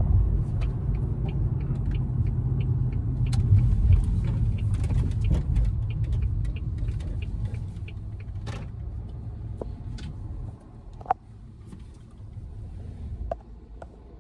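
Road noise inside a moving car's cabin: a steady low rumble of tyres and engine, which drops noticeably after about ten seconds as the car slows. Scattered light clicks and ticks sound over it.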